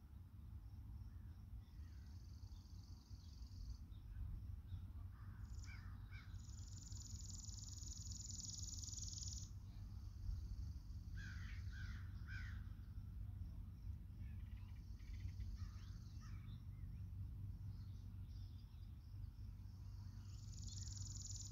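Faint rural outdoor ambience: distant birds calling in short bursts, and high steady insect trills lasting a few seconds at a time, over a low steady rumble.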